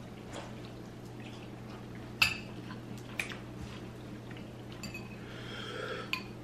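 Metal forks clinking and scraping against white ceramic bowls of noodles: a few sharp clinks, the loudest about two seconds in, over a faint steady low hum.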